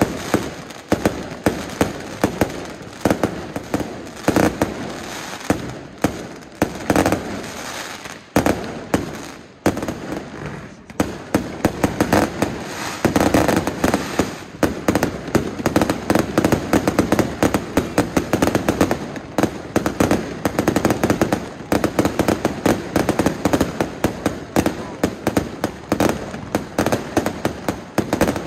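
Aerial fireworks going off in a fast, continuous string of bangs and crackles from rising rockets and bursting shells, thickest around the middle.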